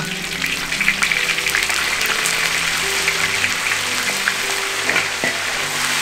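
Hot oil sizzling steadily in a pan as Sichuan peppercorns fry in it to release their aroma.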